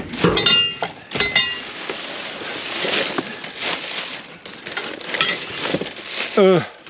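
Metal clanking and junk rattling as a steel bed rail is dug out and pulled free, with two ringing metal clanks in the first second and a half and scattered knocks and rustling after. A short sound falling in pitch comes near the end.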